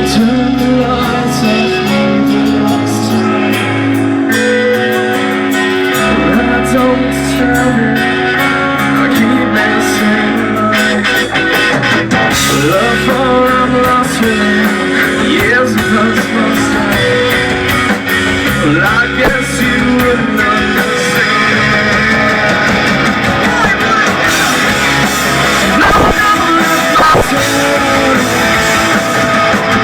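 Live rock band playing loudly: distorted guitars over bass and drums, in a stretch of the song without clear vocals.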